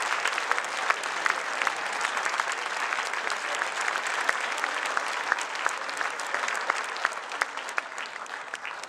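Large audience applauding: many hands clapping in a dense, steady wash of claps that eases slightly near the end.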